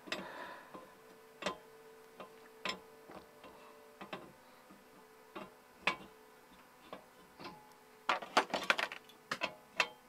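Light metallic clicks and clinks of open-end wrenches on a refrigerant line fitting of an Isotherm compressor unit as it is fitted and tightened, coming irregularly every second or so, with a quick run of clinks near the end, over a faint steady hum.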